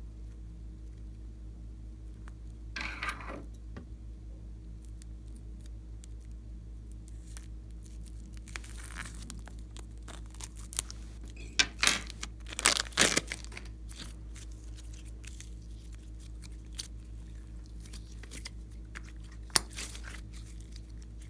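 Plastic piping bag of clay crinkling as it is handled, then scissors snipping through its plastic tip in a cluster of sharp cuts about 12 to 13 seconds in. A steady low electrical hum runs underneath.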